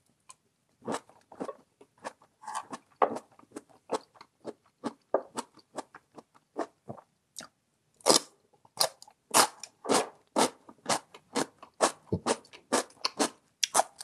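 Close-miked chewing of crisp pickled radish: a quick, uneven run of crunches, a short pause about halfway through, then faster, louder crunching.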